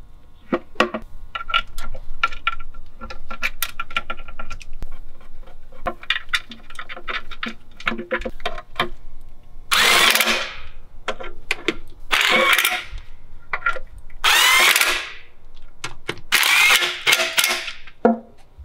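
Metal tools and parts clicking and clinking, then four short runs of a power tool, each about a second long, driving in the bolts of a new automatic transmission filter.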